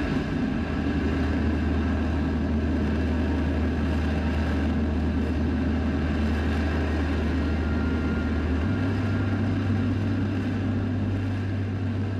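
Rocket engines on Relativity Space's 3D-printed Terran 1 firing on the pad in a static test: a loud, steady rumbling noise, with a low hum underneath that steps up slightly in pitch about nine seconds in.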